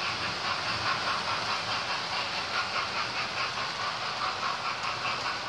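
Model railway train running past on the track: a model steam locomotive hauling coaches, its motor and wheels making a steady running noise with a fast, even pulsing.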